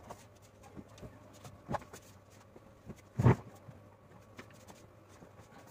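A heavy quilt being shaken out and handled: soft rustling, a flap about one and a half seconds in, and a louder thump a little after three seconds.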